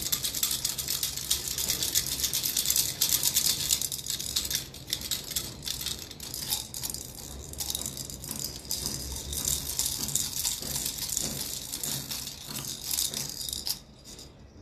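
Plastic baby rattles shaken rapidly, a fast dry rattling that stops shortly before the end.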